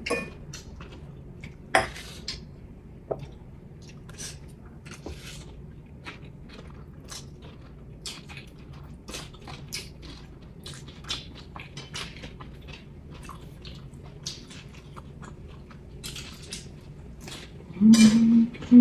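People chewing food, with forks clicking and scraping on ceramic plates in many small, scattered clicks, one louder about two seconds in.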